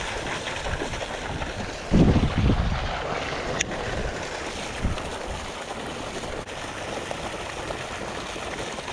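Strong wind buffeting the microphone: a steady rushing noise with a harder low gust about two seconds in.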